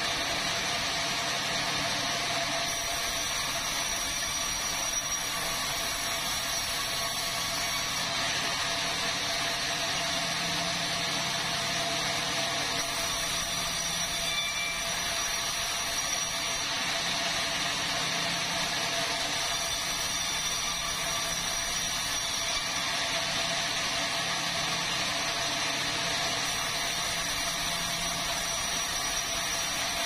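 Large band sawmill running steadily as red meranti timber is fed past its blade: a constant machine drone with a steady high whine, unchanging throughout.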